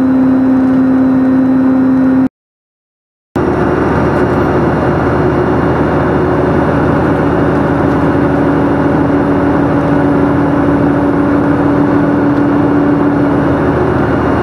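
Big truck's engine and road noise heard from inside the cab as it cruises on the highway: a steady, loud drone with one constant low hum. The sound cuts out completely for about a second, two seconds in, then resumes at a slightly higher pitch.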